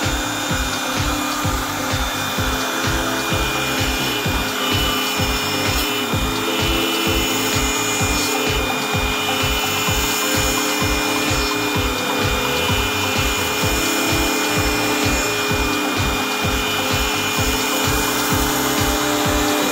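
CNC router spindle running with a steady high whine while its bit cuts into a hardwood board, with the rasp of the bit in the wood.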